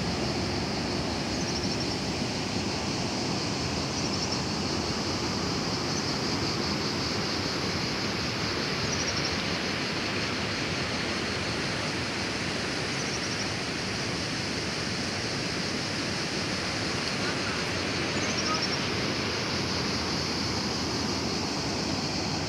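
Steady rush of water at a river weir, an even noise that does not rise or fall. A steady high buzz runs above it, with short high falling chirps every few seconds.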